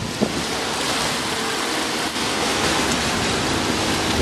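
Steady rushing noise of water and wind buffeting the microphone, with a faint steady engine hum beneath.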